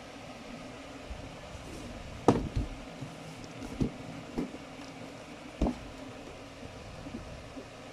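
Cardboard shoebox being handled, set down and turned over, giving several short dull knocks and taps, the loudest about two seconds in, over a steady background hiss.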